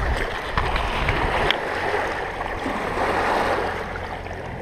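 Small waves lapping at a rocky shoreline, with wind on the microphone and a few light clicks.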